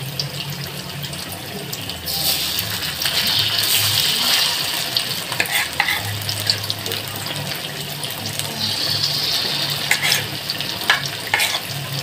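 Flour-coated mackerel tuna (tongkol) frying in hot oil in a wok: a steady sizzle with scattered crackling pops, swelling louder about two seconds in and again near the end.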